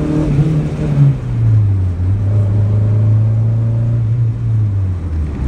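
Turbocharged Honda D16Y7 single-cam four-cylinder engine heard from inside the car's cabin on a test pull: the revs climb, drop about a second in, hold steady, then fall off near the end. On this pull the boost stops at only about 2 psi, with the Mac valve boost solenoid at a low duty cycle.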